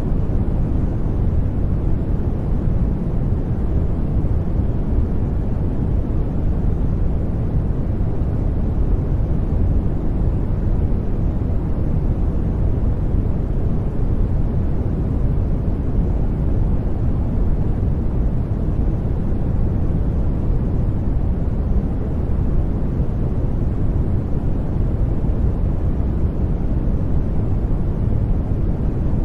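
Steady brown noise: a deep, even rumbling hiss, strongest in the bass and falling off toward the treble, without change or events.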